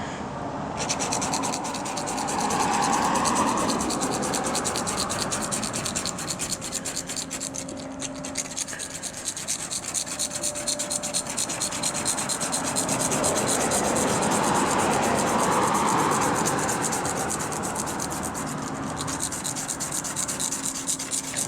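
Razor blade shaving polyurethane spray-foam overspray off a car's waxed paint: a continuous scraping rasp that grows louder about three seconds in and again around fifteen seconds.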